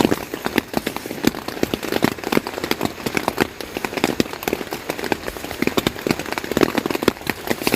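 Rain falling on a hard surface: a dense, irregular patter of individual drops.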